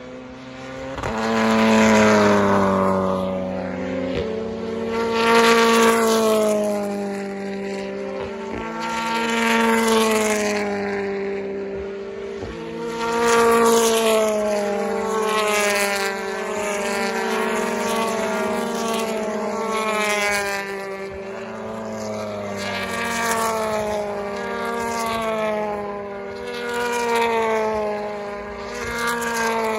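Several BTCC touring cars with 2.0-litre turbocharged four-cylinder engines pass one after another at racing speed. Each engine note rises and falls as a car goes by, with the loudest passes about 2, 6, 10 and 14 seconds in. A few short exhaust cracks come between the passes.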